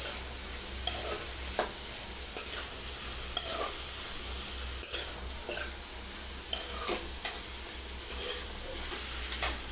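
Chopped mixed vegetables sizzling in hot oil in a metal kadai while a metal spoon stirs them, scraping and knocking against the pan every second or so.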